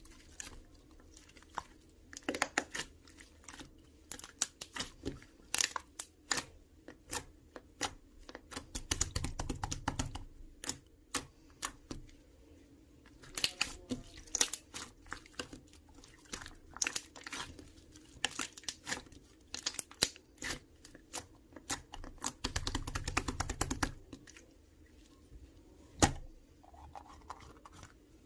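Clear, water-like slime being played with: a steady run of small wet clicks and pops, with two denser stretches of rapid crackling about nine and twenty-two seconds in, and one sharper pop near the end.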